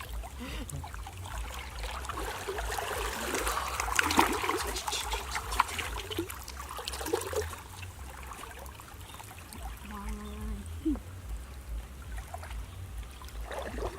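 Water splashing and trickling in shallow water, busiest in the first half and thinning out later, with a few faint short vocal sounds.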